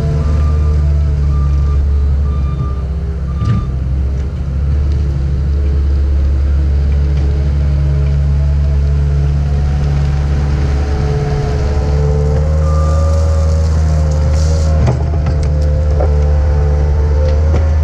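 Cat 279D compact track loader working: its diesel engine runs steadily, with a whine that rises and falls in pitch. A back-up alarm beeps at the start and again near the end, and there are two sharp clanks.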